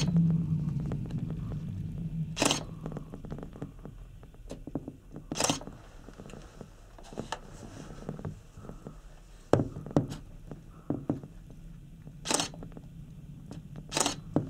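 Inside a Panoramic Mont Blanc gondola cabin riding the cable. A low hum dies away over the first few seconds. Scattered sharp knocks and clicks follow, a handful of them louder.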